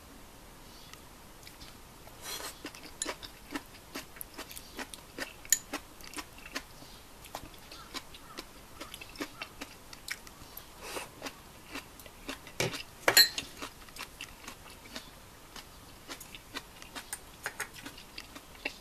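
A person chewing a mouthful of cabbage and green onion close to the microphone: an irregular run of short, wet crunching clicks, the loudest a little past the middle.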